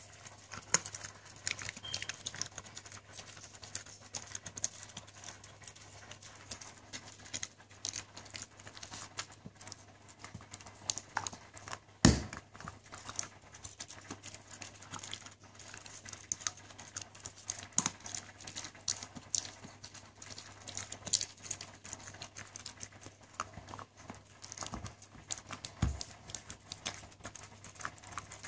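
Siberian husky gnawing a hard chew treat: a steady run of irregular clicks and crunches from her teeth, with one louder knock about twelve seconds in.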